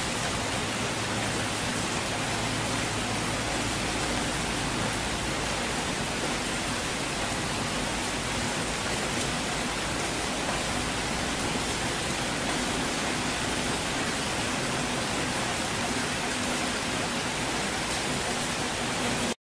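Steady rain, an even, unbroken hiss with no thunder heard, cutting off suddenly near the end.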